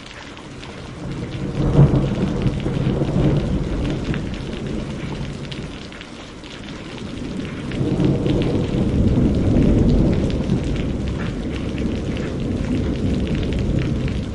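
Steady rain with two rolls of thunder: the first swells about a second in with a sharp crack and dies away over a few seconds, and the second builds soon after the middle and rumbles on slowly until the end.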